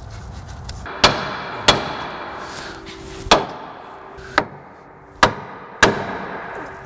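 Six sharp hammer blows on the steel steering knuckle of a GMT400 Chevy truck, shocking the ball joint stud loose from its tapered seat in the knuckle. Some blows leave a brief metallic ring.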